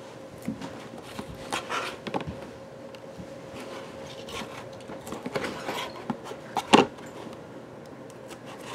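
Cardboard and paper being handled on a tabletop: rustles, slides and light taps as a cardboard disc is turned and pressed down, with one louder knock near the end. A faint steady hum runs underneath.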